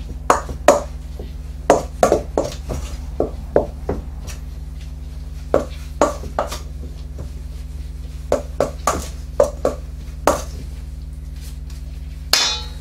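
Gloved hands mixing wet paper pulp and PVA glue in a stainless steel bowl: irregular knocks, clicks and squelches as fingers and pulp strike the metal bowl, over a steady low hum. A brief rustling scrape comes near the end.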